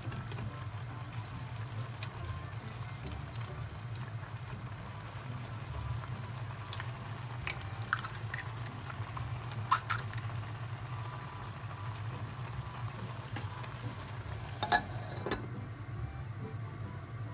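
Instant ramen noodles and cabbage simmering in a small pot of water, with light clicks of chopsticks against the pot and an egg cracked open. Near the end a glass pot lid is set down with a sharp clink, and the bubbling becomes muffled under it.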